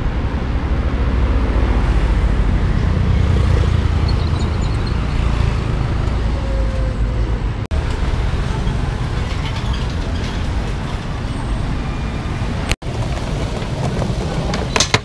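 Traffic on a busy city street: cars and motorcycles passing by, a steady rumble.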